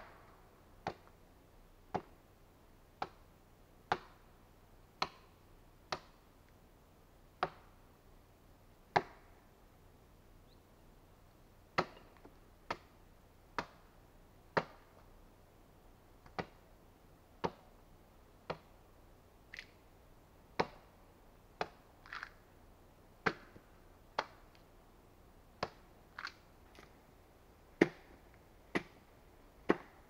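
Axe chopping into a wooden log as it is hewn into a beam: sharp blows of the blade into wood about once a second, with a short pause about a third of the way in.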